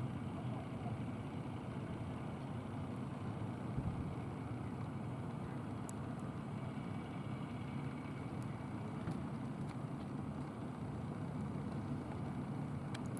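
An engine running steadily at idle, a low even rumble with a few faint clicks.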